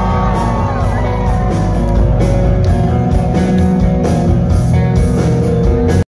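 Live rock band playing loud through a concert PA, heard from the crowd: electric guitars over bass and regular drum hits. The recording cuts off suddenly near the end.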